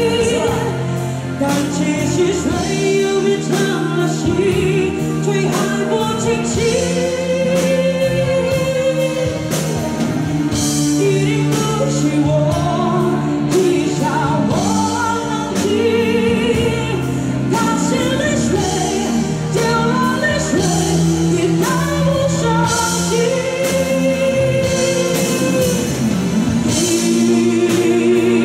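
A woman singing lead into a microphone over an amplified live band with electric bass and keyboard, holding long notes with vibrato over a steady beat.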